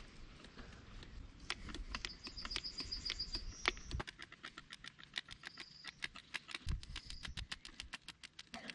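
Hand grease gun being pumped into the excavator's grease fittings: a quick, even run of faint clicks, about four a second, with a few brief high squeaks.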